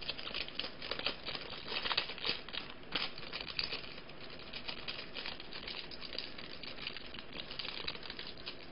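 Crinkling and rustling of a thin clear plastic card sleeve as a trading card is slid out of it by hand, busiest over the first few seconds and then lighter.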